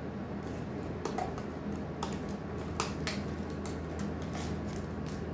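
Irregular crisp crackles and clicks of an instant noodle cup's paper lid and plastic packaging being handled and peeled open, over a steady low hum.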